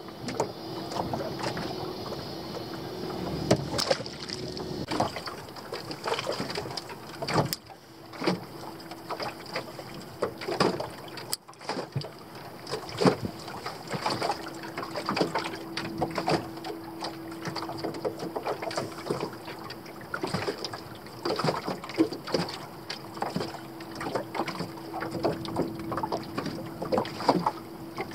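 Water lapping and slapping against a small fishing boat's hull, with frequent irregular knocks and a faint steady hum.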